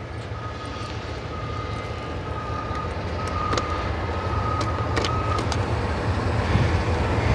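Low rumble of a vehicle engine, slowly growing louder. A steady high tone sounds over it and stops about five seconds in, with a few light clicks.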